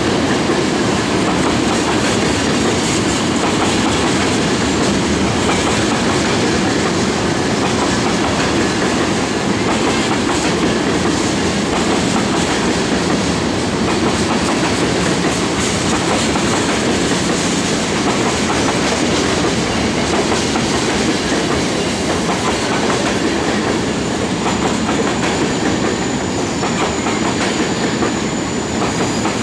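A long freight train of loaded LPG tank cars rolling steadily past, its steel wheels clattering over the rail joints. A thin high whine comes in near the end.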